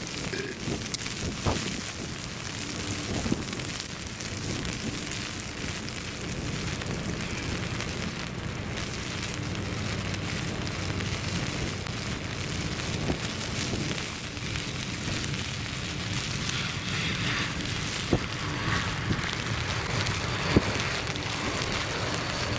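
Heavy rain and gusting wind on the microphone: a steady hiss with scattered sharp pops. Underneath, the faint sound of an Avro RJ85's four turbofan engines as it lands and rolls out on the wet runway, with a thin high whine coming up near the end as it draws closer.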